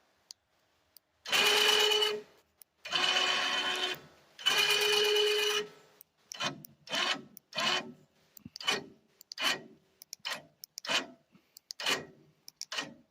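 Badland 2500 electric winch motor running under remote control: three runs of about a second each, then a quick string of short start-stop bursts through the second half.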